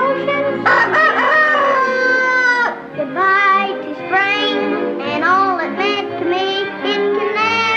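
A boy singing a solo over orchestral accompaniment, with a loud, long held note about a second in.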